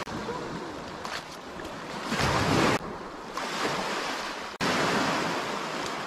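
Small sea waves washing up onto a pebble beach, the surf swelling and falling back.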